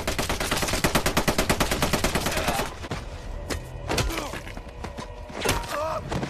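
Film soundtrack of rapid automatic gunfire, about ten shots a second for nearly three seconds. The fire stops, and a few separate heavy hits follow, with short cries.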